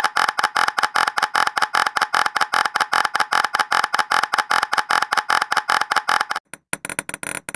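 Rapid synthetic clicking sound effects from animated bouncing balls, one short click per bounce at about seven a second, in an even run. About six and a half seconds in the clicks stop briefly, then return sparser and irregular, with a higher tone.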